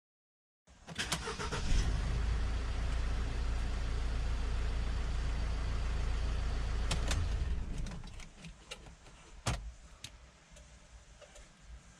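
Mercedes Sprinter diesel engine starting and running steadily for about six seconds, then switched off about eight seconds in. Light clicks come before the start; faint ticking and a single sharp knock follow the shutdown.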